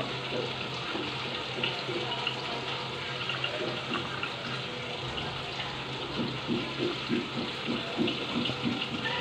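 Running water from a kitchen tap, a steady rush under a low hum, with a run of soft knocks in the last three seconds.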